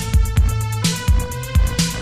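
Music with a steady, heavy bass beat.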